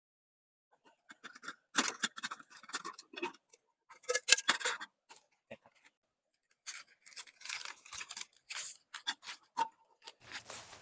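Camping gear being unpacked by hand: plastic food packaging crinkling and rustling, with light clicks and knocks as items are set down on the camp table. It comes in two spells with a short pause in the middle.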